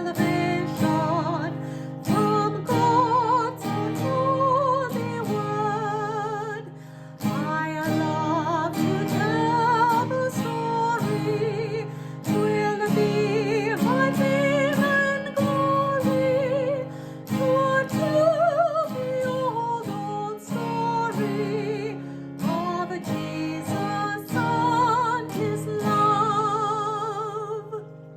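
A song: acoustic guitar strummed steadily under a singing voice, dying away near the end.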